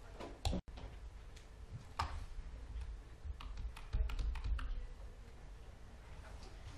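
Irregular clicks and taps of typing on a computer keyboard, with a loose flurry of keystrokes about four seconds in, over a low steady rumble.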